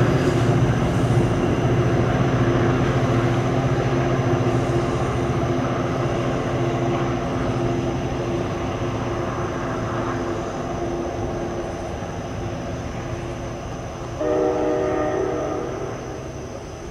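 NJ Transit PL42AC diesel locomotive hauling a commuter train away, its engine drone steady and slowly fading. About fourteen seconds in, its horn sounds one chord for about two seconds.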